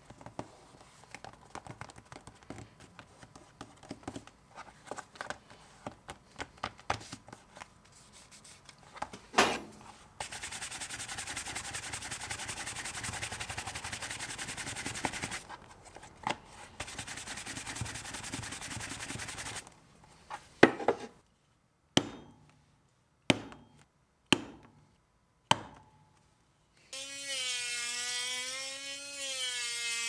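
Hand-sanding the edge of a leather card holder: steady scratchy rubbing in two long passes after some light handling taps. Then five sharp knocks, and near the end a small handheld electric rotary tool starts whirring against the leather, its pitch wavering up and down.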